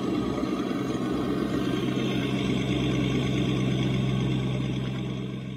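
RC hydraulic excavator, a scale Cat model, running with a steady hum as it moves its boom and arm. The hum fades out near the end.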